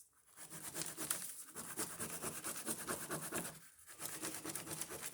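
Ballpoint pen scribbling back and forth on paper, a fast continuous scratching with two short pauses where the pen lifts. A dried-out ballpen is being tested to see whether its ink flows again after brief microwave heating.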